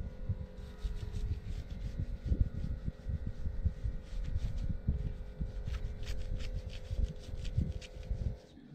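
Hand rubbing a lump of butter over the top of a large qutab flatbread on a cloth-covered table, giving irregular dull rubbing and bumping strokes. A faint steady hum sits underneath.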